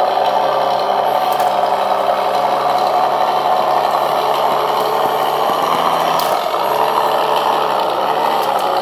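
1/6-scale RC rock crawler running, its drivetrain gears whirring steadily, with a low V8 engine hum from its sound module underneath. The engine hum shifts pitch about two-thirds through and dips briefly near the end.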